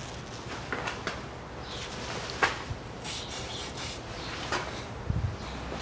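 Rubber exhaust hanger being worked off its mounting pin by a gloved hand: scattered rubbing, creaks and small knocks, with a sharper click about two and a half seconds in, a brief hiss a little after three seconds and a dull thump near the end.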